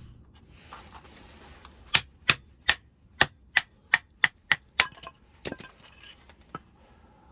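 A run of about nine sharp knocks, roughly three a second, like striking with a hammer, then a few fainter ones spaced further apart.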